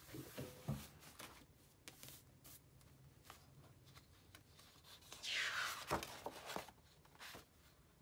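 Sketchbook pages being handled and turned: paper rustling with light taps and clicks, and a louder swish of a page sliding over about five seconds in.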